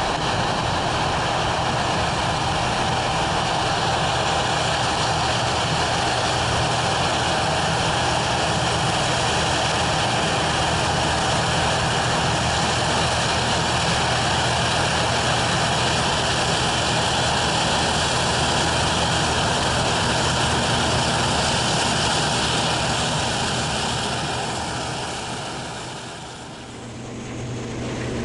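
Combine harvester running steadily at harvest, a continuous dense machine noise with a steady high whine over a low hum. Near the end the sound briefly fades and then comes back.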